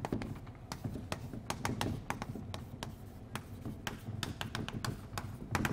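Chalk writing on a chalkboard: an irregular run of sharp chalk taps and clicks, several a second, as words are written out.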